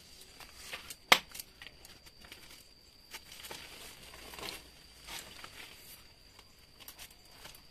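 Brittle, cracked plastic plant pot crackling and crinkling, with soil rustling, as a large root ball is worked loose from it; scattered small cracks, with one sharp crack about a second in.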